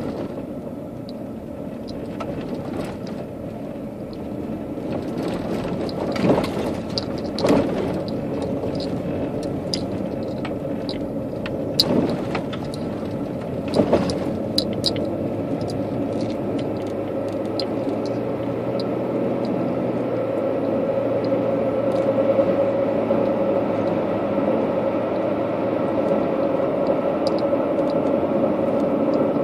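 Road noise of a moving car heard from inside: a steady drone of tyres and engine, with a handful of sharp knocks and rattles in the middle stretch.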